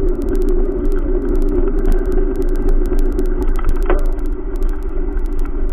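Steady rumble and rattle of a bicycle rolling along a concrete sidewalk, picked up on a camera carried on the ride, with a sharp knock about four seconds in.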